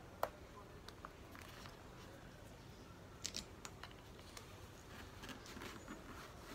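Faint clicks and rattles of plastic goggles and a face mask being handled on an open-face helmet. There is one sharp click just after the start and a small cluster of clicks about three seconds in.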